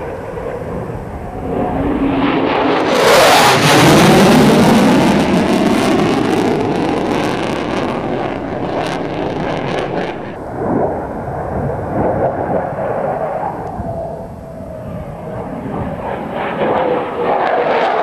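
Military fighter jet making a low pass: the jet engine noise swells to its loudest about three to four seconds in as it goes by, its pitch sweeping downward. A lower rumble carries on, cuts off sharply about ten seconds in, and builds again near the end.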